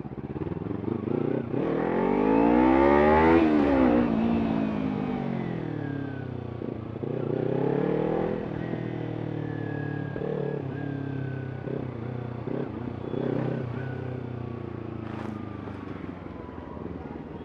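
Kawasaki Ninja 300's parallel-twin engine through an Arrow aftermarket exhaust, revving. The pitch climbs for about three seconds and falls away, then a shorter rev follows around eight seconds in, with quick throttle blips near ten and thirteen seconds.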